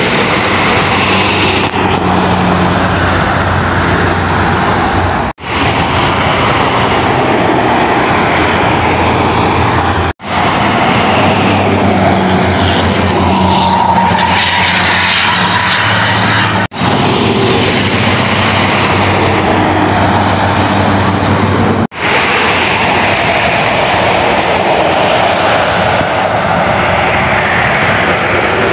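Buses and other traffic passing at speed on a highway: steady engine and tyre noise with a low engine hum. Four brief dropouts break it where clips are joined.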